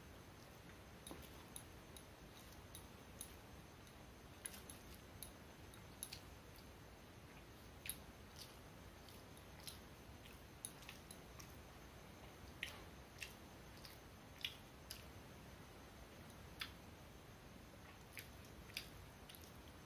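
Faint eating sounds: a hand mixing rice on a steel plate and a mouth chewing, with many small, sharp clicks scattered irregularly throughout.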